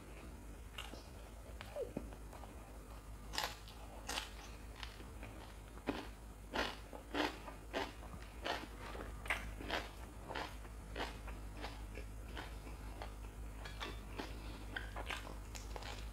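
Close-miked chewing and biting of crisp fried food, vade and fried dried red chilies: a run of sharp crunches, busiest through the middle, with another bite near the end.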